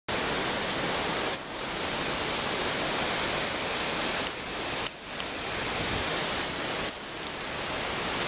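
Hurricane wind and rain: a steady, full rushing hiss through the trees that dips briefly about three times.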